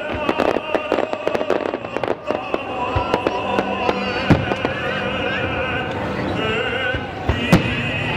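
Fireworks bursting and crackling: a dense run of crackles in the first two seconds, then single sharp bangs about four and seven and a half seconds in. Under it runs music with a singing voice.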